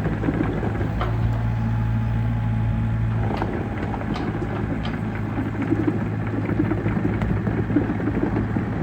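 Komatsu PC54R mini excavator's diesel engine running steadily, with a few short clicks and knocks over it.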